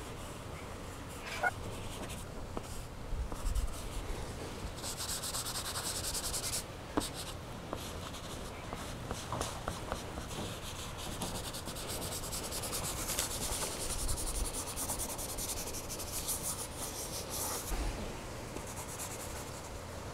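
Chalk pastel stick rubbing and scratching across paper in repeated strokes, strongest in two longer stretches, with one sharp click about seven seconds in.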